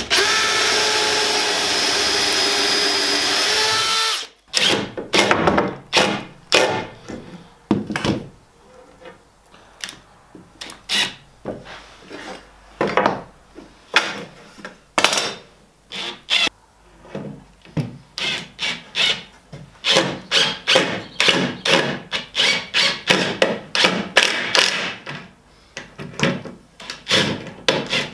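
A cordless drill boring a pocket hole in wood held in a pocket-hole jig: a steady, loud, high whine for about four seconds that stops abruptly. After that, a cordless drill/driver runs in many short bursts as it drives screws to join wooden rails to timber posts.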